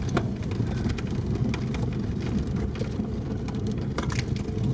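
Cabin noise of an off-road vehicle driving slowly along a snowy forest track: a steady low rumble of engine and tyres, with scattered clicks and knocks as it goes over bumps.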